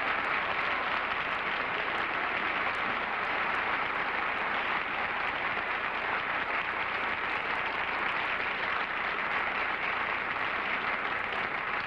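Studio audience applauding, a steady, even clapping.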